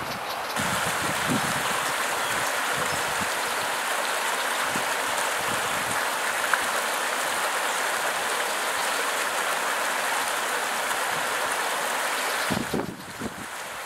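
A small rocky creek swollen after heavy rain, its water rushing steadily over stones, starting about half a second in. Near the end the rush gives way to gusts of wind buffeting the microphone.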